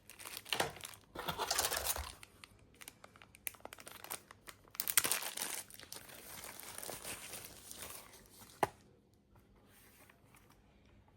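Packaging being unwrapped, crinkling and tearing in two bursts, with one sharp click near the end.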